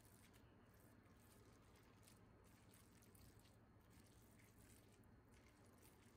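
Faint, soft squishing of a metal potato masher pressing boiled potatoes into shredded cooked chicken in a pan.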